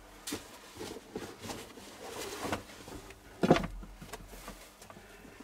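Scattered light knocks, clicks and rustles of objects being handled on a workshop shelf, with a louder cluster of knocks about three and a half seconds in.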